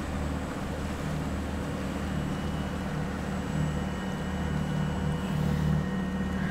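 A sailboat's inboard diesel engine running steadily under way, a low hum that swells and fades in an uneven throb.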